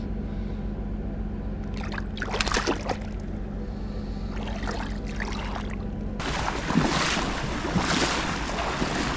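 A few short splashes in shallow water as a released sea bass is let go by hand, over a steady low hum. About six seconds in, this gives way to continuous loud sloshing of legs wading fast through knee-deep water.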